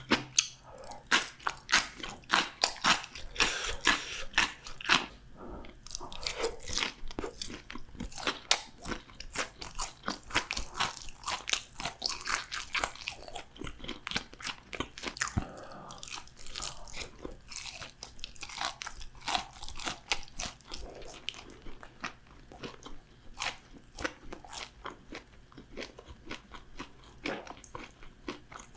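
Close-miked crunching and chewing of crispy fried food, a rapid irregular run of sharp crackles from bites and chews.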